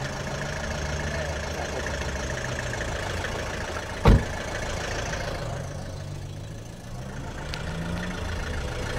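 Car engine idling steadily, with a car door slammed shut about four seconds in; the slam is the loudest sound.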